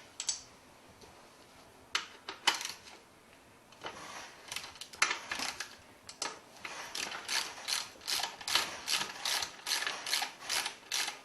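Hand ratchet wrench clicking as it is worked on a fastener of an air-cooled Porsche 911 engine case during dismantling. A few separate clicks come first, then from about halfway a steady run of about three clicks a second.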